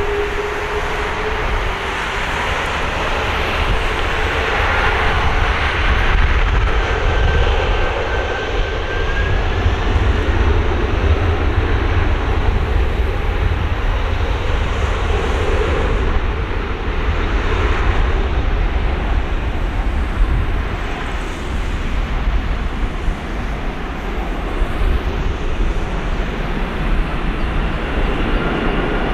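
Boeing 747-400's four Pratt & Whitney PW4056 turbofans at takeoff power during the takeoff roll: a loud, steady jet roar with a deep rumble. An engine whine rises in pitch and fades in the first two seconds.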